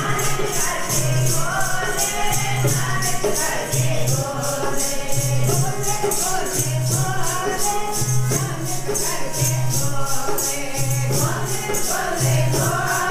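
Sikh kirtan: devotional hymn singing over a fast, even percussion beat.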